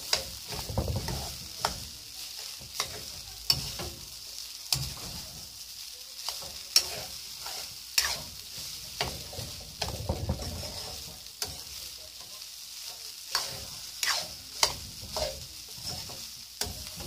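Metal ladle scraping and clacking irregularly against a metal wok as fried rice is stirred and tossed, over a steady sizzle of the rice frying in oil.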